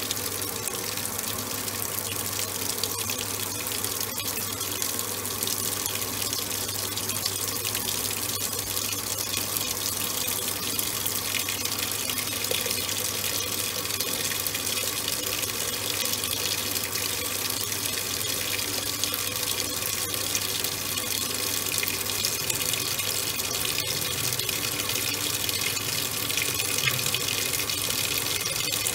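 Top-loading washing machine with water pouring into its tub at the start of a wash: a steady rush of water over a constant low hum.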